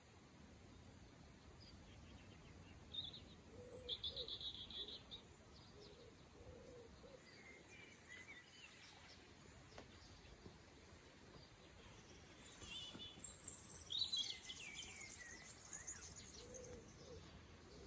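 Faint wild birdsong: short high trills about four seconds in and a longer run of descending trills around thirteen to fifteen seconds, with soft low coos now and then.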